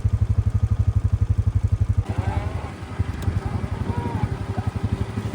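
A farm vehicle's small engine running at low revs with a fast, even putter. About two seconds in, the engine note drops back and runs softer.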